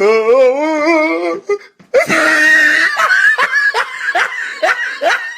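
A person laughing hard: a drawn-out wavering laugh, a loud noisy shriek about two seconds in, then a run of quick short laughs, about three a second.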